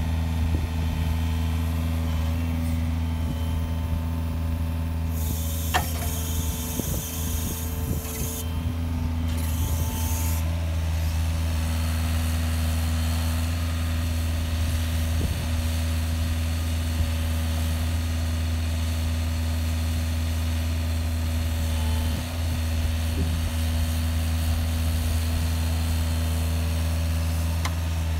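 Diesel engine of a 5.5-tonne Hitachi mini excavator running steadily under load as it works a five-finger grapple and rotator. A hiss comes and goes about five to ten seconds in, with a sharp click about six seconds in.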